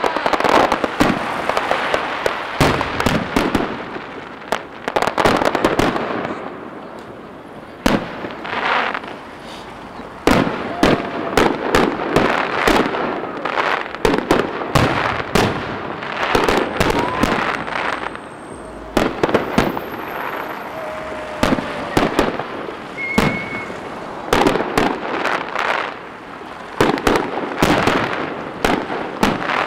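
Aerial firework shells bursting overhead in irregular volleys of sharp bangs, with a couple of lulls between the heavier volleys.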